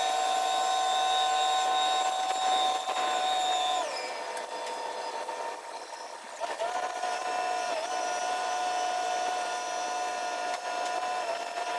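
Fast-forwarded sound of the Liebherr LTM 11200-9.1 mobile crane's engine and hydraulics, sped up into a steady high whine. Its pitch drops and the whine fades about four seconds in, then rises back about two and a half seconds later and holds steady, as the engine is throttled back and taken up again while the boom moves.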